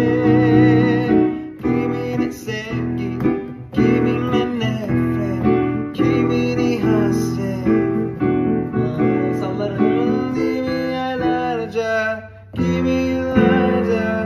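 A song with piano accompaniment: a voice sings a slow melody with vibrato over the piano, pausing briefly between phrases.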